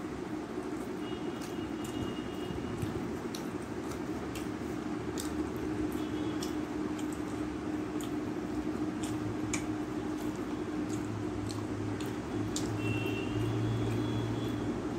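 Eating by hand: fingers squishing and mixing rice and fish curry on a steel plate, with many small sharp clicks and mouth sounds, over a steady low background hum. A low rumble swells in the last few seconds.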